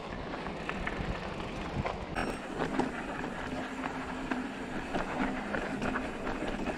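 Mountain bike, a Rocky Mountain Element C70, rolling over a rough trail: tyre noise with frequent clicks and rattles, and wind on the microphone. A faint steady hum joins about two seconds in.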